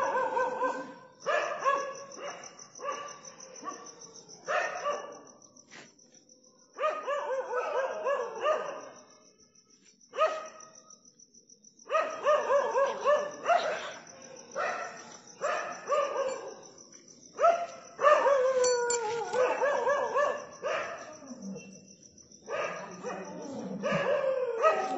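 Dog barking in repeated bouts of short calls, with short pauses between the bouts.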